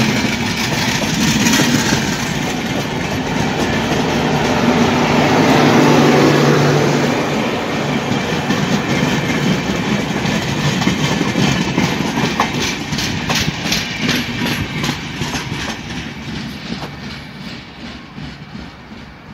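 Passenger train of LHB coaches passing close at speed: a steady rush of wheel and rail noise, loudest about six seconds in. After that, wheels click in an even rhythm over rail joints as the last coaches go by and the sound fades away.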